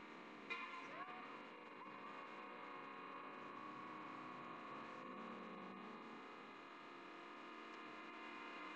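Faint steady electrical hum over low background noise, with a soft click about half a second in.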